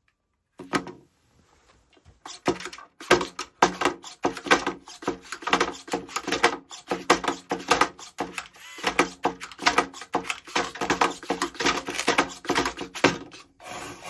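Small antweight combat robot flipping and clattering on a plywood arena floor as it tries to self-right: a single knock, then a long run of rapid knocks and rattles with a faint motor hum underneath.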